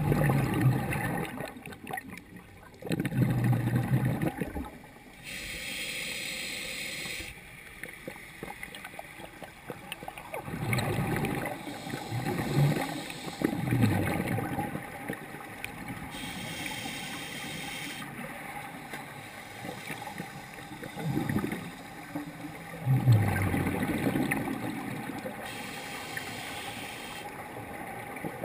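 Scuba diver breathing through a regulator underwater: three slow breaths, each a hiss of about two seconds on the inhale followed by several seconds of gurgling exhaled bubbles.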